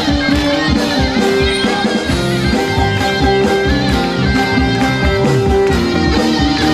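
Live band playing an instrumental passage with no singing: plucked strings carry held notes over a steady drum beat.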